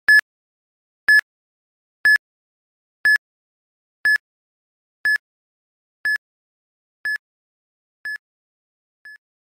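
Quiz countdown timer sound effect: a short, high electronic beep once a second, ten in all, each a little fainter than the last, counting down the seconds left to answer.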